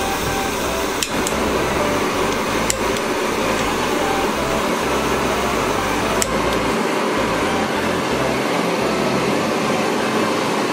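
Butane torch heads on cassette gas canisters burning with a steady jet hiss as they are lit one after another. Sharp clicks of the piezo igniters come about a second in, near three seconds and about six seconds in.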